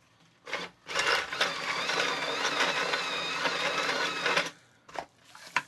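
Small electric drive motor and plastic gearbox of a toy remote-control skid steer loader whirring as it pushes through sand, with a wavering high whine. A short burst about half a second in, then a steady run of about three and a half seconds that stops, followed by a couple of clicks near the end.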